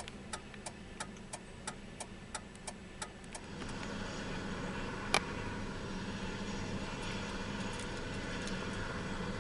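Regular ticking about three times a second, like a vehicle's hazard-light flasher, stops about three seconds in. A steady, louder drone with a low hum then rises and holds: the rescue helicopter running on the ground. A single sharp click comes about five seconds in.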